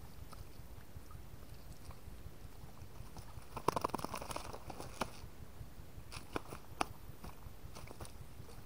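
A gill net with fish caught in it being hauled in and handled by hand, crackling and rustling. About three and a half seconds in there is a rapid run of clicks and slaps, then a few single clicks.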